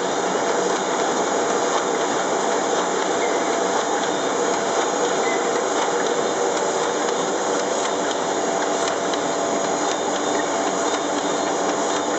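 Srida film laminating machine running: a steady mechanical hiss and hum from its rollers and sheet conveyor as printed sheets feed through, unchanging throughout.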